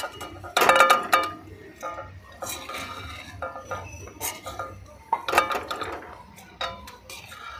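Perforated steel skimmer scraping and knocking against a metal kadai as fried sitabhog strands are scooped out of the oil. The knocks are irregular and have a short metallic ring, with the loudest cluster about a second in and another about five seconds in.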